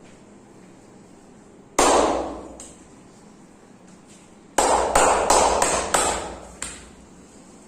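Sharp, loud hand slaps of a massage: a single slap about two seconds in, then a rapid run of five or six slaps near the end, each ringing out briefly.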